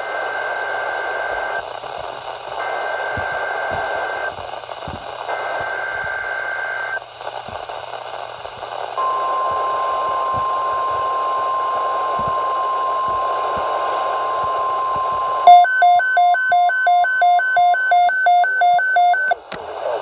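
Emergency Alert System broadcast over a hissy radio: three bursts of the SAME digital header, each about a second and a half with a second's gap, then the steady 1050 Hz weather-radio alert tone. Near the end the receiver's own alarm joins in, a rapid string of loud electronic beeps about three a second.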